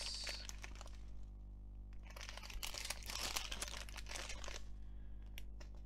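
A strip of small plastic bags of diamond-painting drills crinkling as it is handled, in bouts of rustling with a brief lull about a second and a half in.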